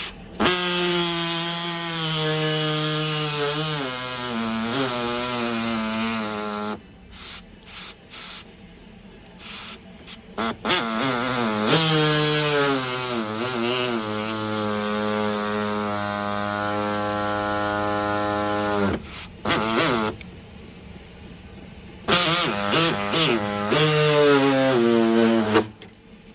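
Handheld power tool cutting the door's interior plastic trim, run in three long bursts with short pauses between; its pitch wavers and dips as the tool bites into the plastic.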